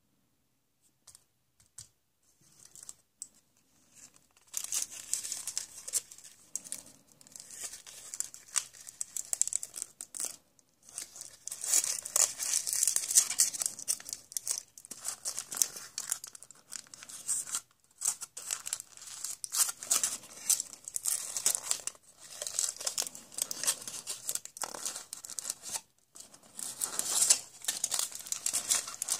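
A crinkly wrapper being torn open and crumpled in the hands, as when a surprise egg is unwrapped: a few faint crackles, then nearly continuous crinkling and tearing with brief pauses.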